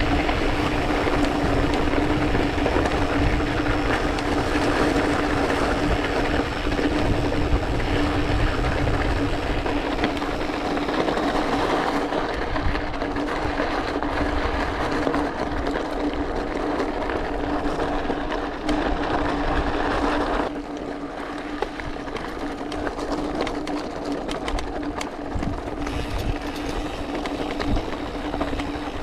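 Mountain bike rolling over a loose gravel track: a steady crunching tyre rumble and rattle, with a steady low hum underneath. About twenty seconds in the noise drops a little and turns duller.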